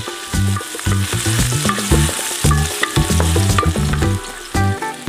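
Diced onions sizzling in hot oil in a metal wok, stirred and scraped around with a wooden spoon in repeated strokes.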